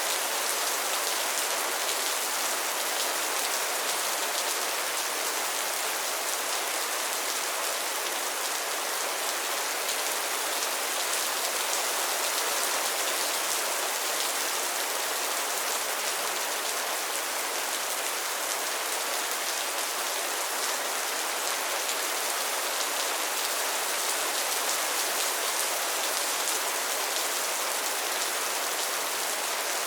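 Steady rain falling on a pond and its lily pads: an even, dense patter of countless drops on water and leaves, bright and hissy with little low rumble.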